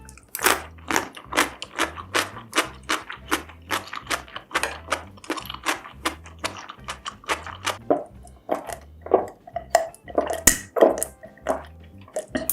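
A person chewing food close to the microphone: a steady run of mouth smacks and chomps, about two to three a second, with a few louder ones near the end.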